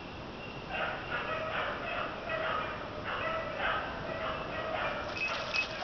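Hunting dogs baying steadily, about two barks a second, holding a wounded wild sow at bay in thick cover. Near the end a high, steady ringing note and some crackling join the barking.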